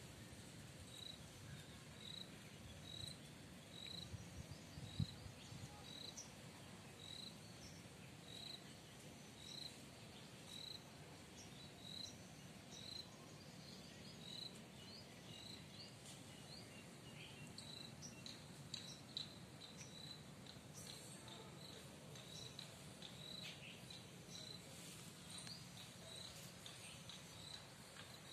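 A cricket chirping faintly and steadily, one short high chirp about every half second, with scattered fainter high chirps and ticks around it.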